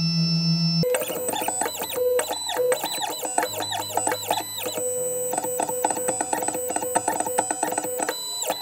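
Background music of plucked guitar-like notes over synthesizer tones, with a steady beat.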